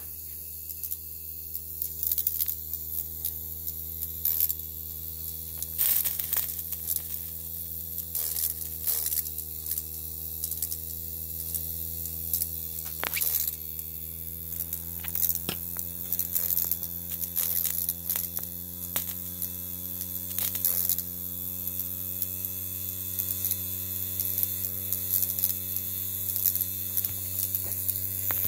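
Miniature brass live steam engine running fast, a steady buzzing hum whose pitch creeps up about halfway through, with irregular sharp clicks and spits throughout.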